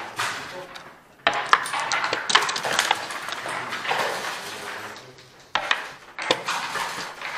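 Dice and checkers clattering on a long-nardy (backgammon) board, in two sharp bursts about a second in and again past five seconds, each trailing off over a second or two.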